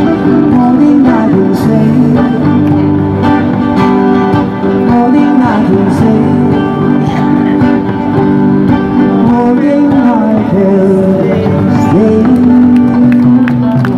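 Live band playing an oldies pop song through a PA: electric guitar and drum kit, with a singing voice.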